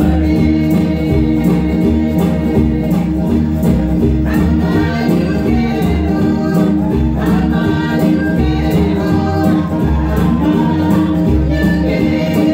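Vanuatu string band music played live: a group of women singing together over strummed acoustic guitars and ukuleles in a steady, even rhythm.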